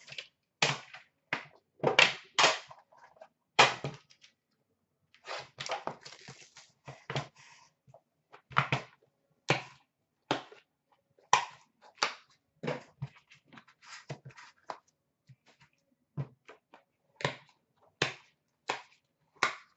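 Scattered sharp clicks and knocks of a metal hockey card tin being opened and handled, with card packs and the lid set down, roughly one or two a second.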